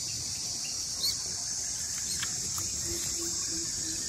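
Steady, high-pitched chorus of insects such as crickets, with one short sharp chirp about a second in and a brief row of low pulsed notes near the end.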